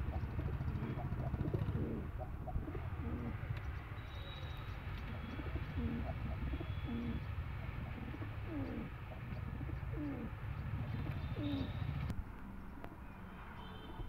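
Domestic pigeons cooing again and again in short falling notes, over a steady low rumble. The cooing and rumble stop at a cut about twelve seconds in.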